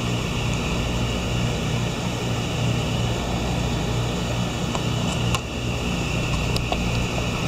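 A steady machine hum with a low drone and an even hiss, unchanging throughout, with a faint click a little over five seconds in.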